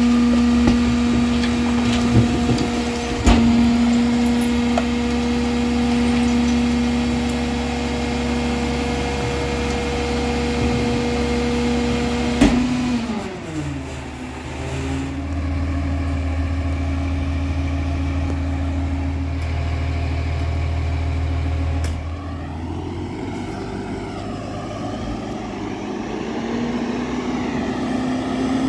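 Diesel engine of a Peterbilt 348 rear-loader garbage truck running steadily at raised revs while the Heil hydraulic packer cycles, with a few metal clunks from the hopper. About twelve seconds in a loud clunk comes and the engine pitch falls, then holds steady again. Near the end the truck runs on a street, its engine rising in pitch as it pulls toward the microphone.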